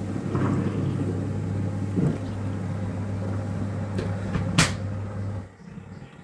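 Leisurewize portable washing machine running, its electric motor giving a steady low hum with a few knocks and clicks. A sharp click comes about four and a half seconds in, and the motor stops about a second later.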